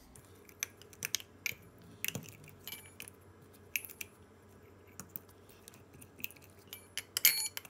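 Muddler crushing whole cloves in the metal top of a martini shaker: irregular sharp clicks and crunches, with a quick cluster of louder clicks about seven seconds in.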